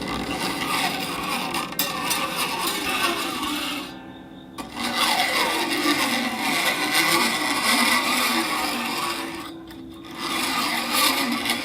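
Glass being rubbed, a harsh rasping friction sound with a faint ringing tone under it, in long strokes broken by two short pauses.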